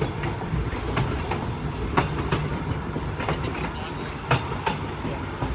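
Passenger train rolling slowly over jointed track: a steady rumble with sharp clicks of the car wheels striking rail joints every second or so, several in close pairs.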